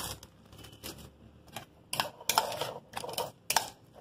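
Metal spoon stirring wet ceviche in a bowl, clicking and scraping against the bowl's sides in an irregular run of sharp clicks, busiest in the second half.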